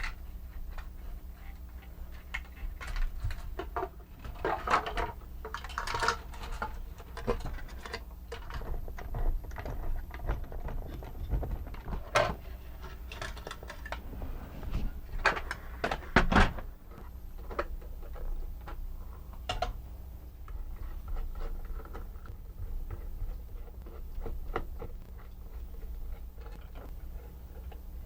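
Irregular clicks, taps and light clatter of small hard objects being handled, with a few louder knocks, over a steady low hum.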